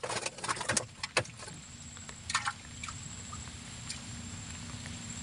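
A few sharp knocks and rustles against the wooden boat as a caught fish is handled into a mesh net bag in the hold, with a short scrape a little over two seconds in. A faint steady low hum runs underneath.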